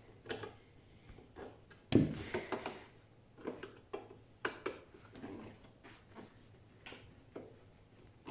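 Scattered small clicks, taps and scrapes of a screwdriver and hands working on a DVD player's sheet-metal casing, with one sharper knock about two seconds in followed by a brief rattle as a screwdriver is set down on the table.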